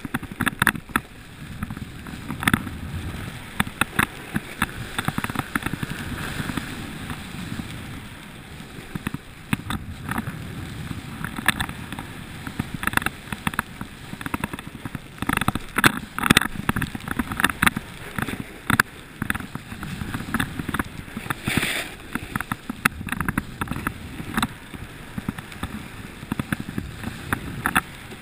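A steady rushing noise with frequent short knocks and scrapes, typical of riding down a packed-snow slope, with no engine note.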